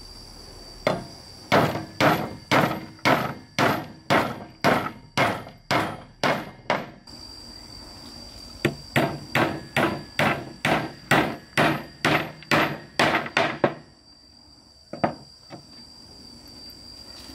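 Claw hammer driving nails through a wooden batten into wooden planks: two runs of steady blows, about two a second, with a short pause between, then two light taps near the end.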